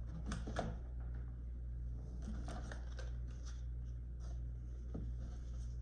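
Plastic packaging of fishing lures being handled, with a couple of sharp clicks near the start and light crinkling and ticking later, over a steady low hum.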